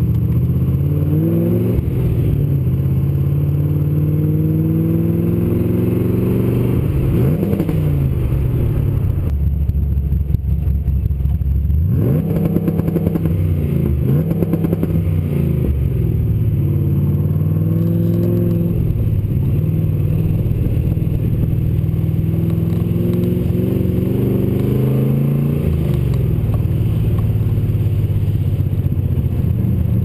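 Chevrolet LS6 V8 in a Nissan 240SX, heard from outside the car, revving up and dropping back again and again as the car accelerates through the gears and slows.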